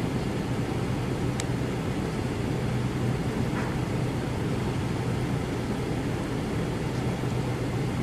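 A motor vehicle's engine running steadily: a continuous low hum under an even rushing noise.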